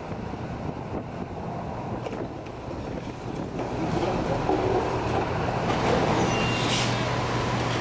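A crane's engine running steadily as a wrecking ball brings down a brick wall; the rumble and clatter of falling masonry builds from about four seconds in and is loudest a little past six seconds.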